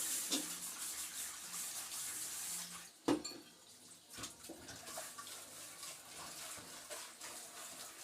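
Kitchen tap running into a sink while dishes are washed. The water stops about three seconds in with one sharp clank of dishware, followed by quieter scattered clinks of dishes being handled.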